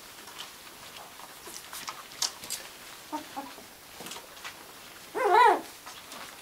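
Newborn Gordon setter puppies squeaking: a couple of faint short squeaks about three seconds in, then one loud wavering cry a little after five seconds.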